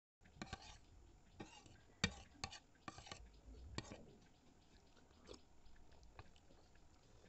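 Faint eating sounds: a metal spoon clicking and scraping against a plastic bowl. There is a cluster of sharp clicks in the first four seconds, then fainter, sparser ticks.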